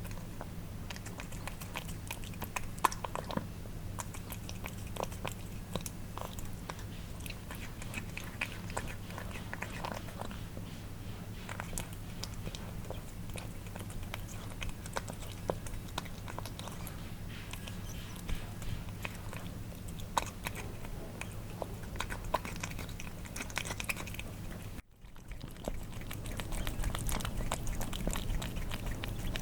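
Cats eating wet food, chewing and licking with many small, wet clicks of tongue and teeth over a steady low hum. There is a brief dropout about 25 seconds in, after which the sound is a little louder.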